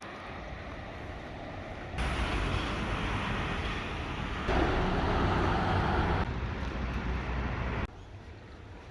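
Steady rushing outdoor background noise with no clear bird calls; it jumps abruptly in loudness and tone several times.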